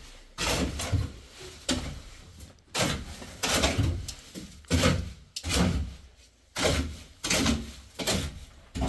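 A series of sharp knocks or thuds, roughly one a second, each dying away quickly.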